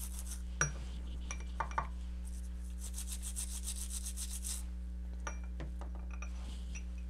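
A toothbrush scrubbing flux residue off a circuit board wet with acetone nail polish remover: quick, rhythmic bristle strokes, a short spell at the start and a longer one a few seconds in, with a few light clicks between.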